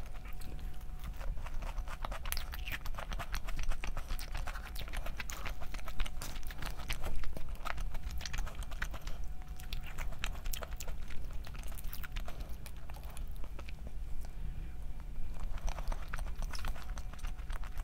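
Close-up eating sounds: a person chewing and crunching food, with many irregular crisp crackles and clicks.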